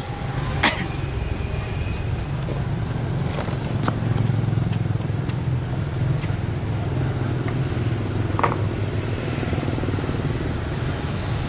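Steady low rumble of street traffic, with a few sharp clicks, one just under a second in and another later on.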